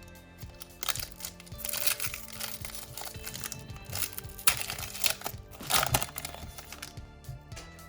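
Foil booster-pack wrapper crinkling and being torn open in several rustling bursts, the loudest about two, four and a half, and six seconds in, over steady background music.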